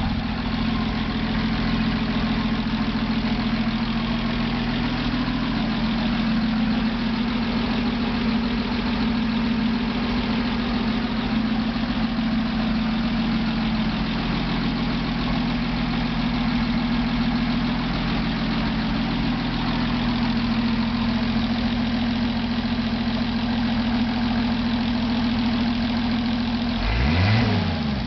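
The rebuilt M29C Weasel's Studebaker Champion six-cylinder flathead engine idles steadily on its first run after a complete rebuild. Near the end it is revved up once and drops back to idle.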